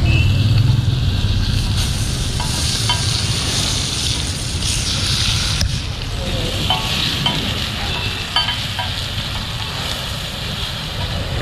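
Fish and prawns sizzling in oil on a large iron griddle pan over a wood fire, a steady hiss. A metal spatula scrapes and clicks against the pan several times.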